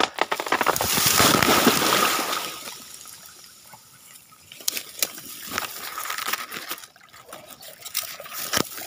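A person falling from a tree into shallow creek water: a sudden splash and heavy sloshing for about two seconds, then scattered sharp cracks and rustling of dry twigs and brush as he scrambles out.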